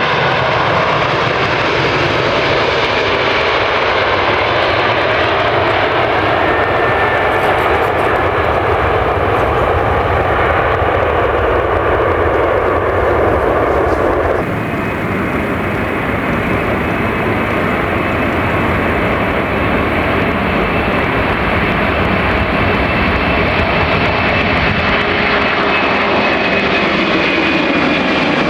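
Boeing 747 jet engines, loud and steady, with a high whine that falls slowly in pitch. About halfway through, the sound changes abruptly to a new steady engine sound with its own high whine.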